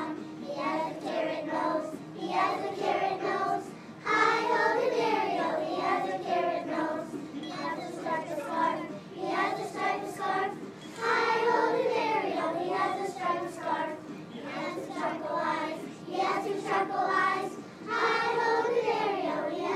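A kindergarten class of young children singing together in unison, in phrases of several seconds with short breaks between them.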